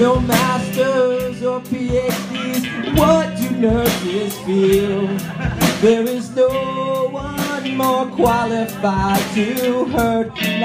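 A man singing a parody song into a microphone, backed by a live band of electric guitar and drum kit keeping a steady beat.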